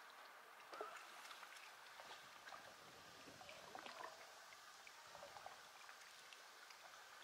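Near silence: faint outdoor ambience with scattered soft ticks and clicks.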